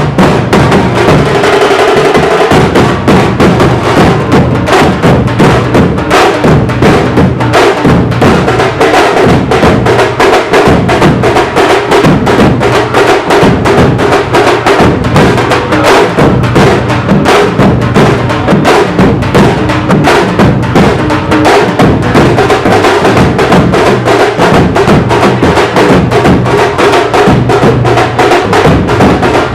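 A group of tamate (tamte) frame drums beaten with sticks in a fast, loud, unbroken rhythm.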